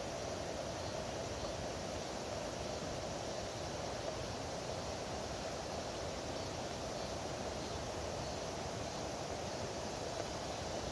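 Steady, even rushing of a flowing valley stream, unchanging throughout, with no single event standing out.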